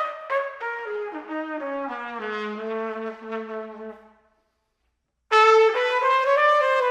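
Instrumental music with a single melodic lead: a phrase steps down in pitch to a held low note and fades out, and after about a second of silence a loud new phrase begins.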